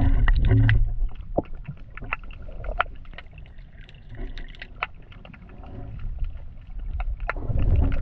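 Underwater sound picked up by a submerged GoPro: muffled water movement and a low rumble, loudest in the first second and again near the end, with many scattered sharp clicks.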